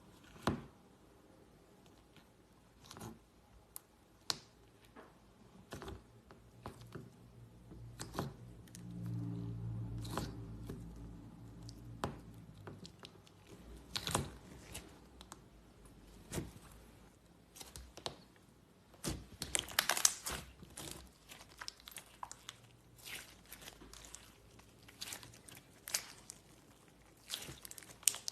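Slime being squeezed and stretched by hand: scattered sticky crackles, clicks and pops, thickest a little past the middle, with a brief low hum about a third of the way in.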